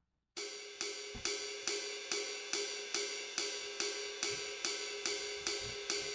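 Background music: an even beat of cymbal-like strikes, a little over two a second, over a sustained tone, starting a moment in.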